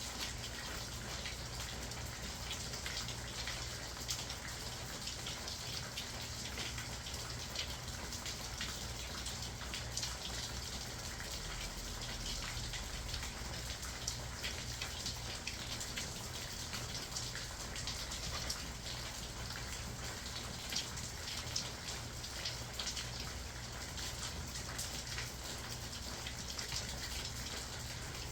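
Steady heavy rain, a continuous patter of many small drop ticks, with a faint low hum underneath.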